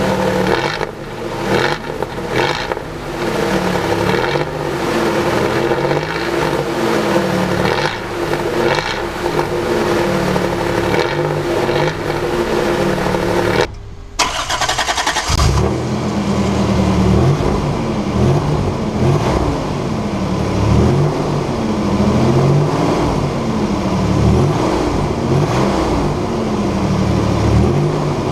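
1994 Toyota Hilux pickup's engine running and being revved over and over, its pitch rising and falling each time. The sound breaks off for a moment about halfway through, then the revving carries on.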